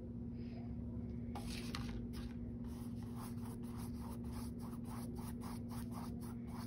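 Paintbrush stroking orange paint onto a canvas: a quick series of short scratchy brush strokes, about three a second, starting about a second and a half in.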